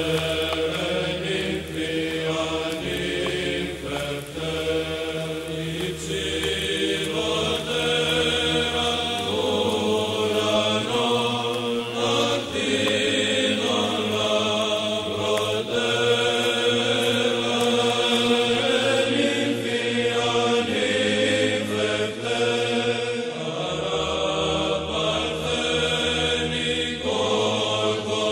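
Background music of Orthodox church chant: voices singing a slow melody in held notes over a sustained low drone, which shifts pitch twice.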